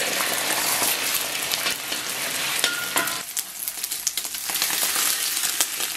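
Beaten egg sizzling loudly in hot oil in a wok, with a metal spatula scraping and clicking against the wok as it scrambles the egg.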